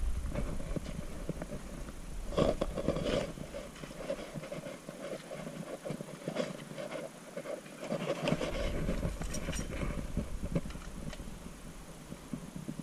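Scattered knocks, clicks and rustling as diving gear and the catch are handled on the ground, over a low rumble that fades out for a few seconds in the middle and comes back.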